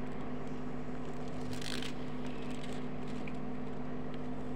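A steady low hum of several constant tones under a light hiss, with one short breathy rush of noise about one and a half seconds in.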